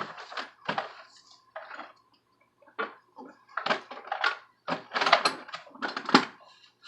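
Irregular metallic clatter and knocks from metal parts and tools being handled and set down, in a string of separate short bursts. No grinder motor is running.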